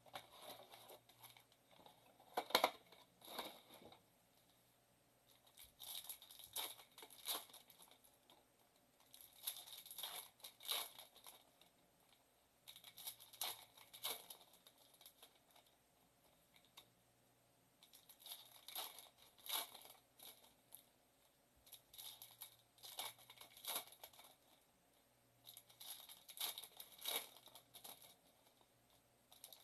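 Foil trading-card packs being torn open and crinkled by hand, in short crackly bursts every few seconds with quiet handling between.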